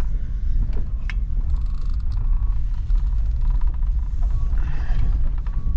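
Truck engine running with a steady low rumble, with scattered creaks and clicks on top.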